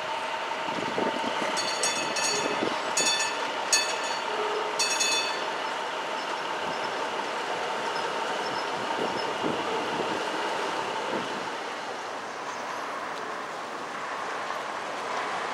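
PCC streetcars rolling on steel rails, with a steady squeal from the wheels on curved track. A cluster of sharp metallic clanks with a ringing tone comes a couple of seconds in, and the running sound eases off near the end.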